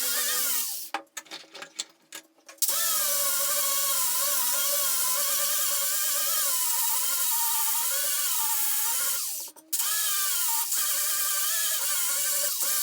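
Small electric power tool motor whining at high speed, its pitch wavering as it is loaded and eased. It cuts out about a second in, starts again just before three seconds, and drops out briefly once more near the end.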